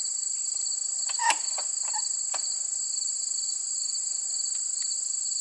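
A steady chorus of insects trilling high, with a sharp click about a second in and a few lighter ticks after it, from a screwdriver working the Phillips screws on a motorcycle brake reservoir cover.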